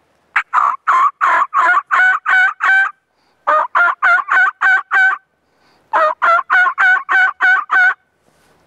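Turkey yelping: three series of evenly spaced, two-toned yelp notes, about four a second, each series lasting one and a half to two and a half seconds.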